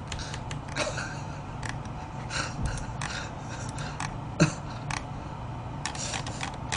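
A man's quiet laughter, with scattered short clicks and one louder knock about four and a half seconds in.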